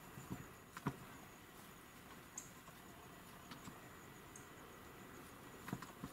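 Faint steady insect chirring, a high thin tone. A few soft taps and rustles: two within the first second and two more near the end.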